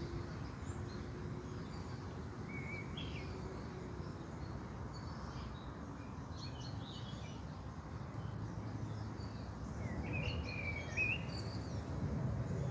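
Birds chirping and singing over a steady low background rumble, with a short warbling phrase about two and a half seconds in and a longer, louder one around ten seconds in.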